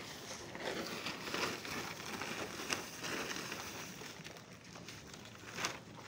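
Irregular rustling and crinkling of a plastic feed sack being handled, with scattered footsteps on a concrete walkway.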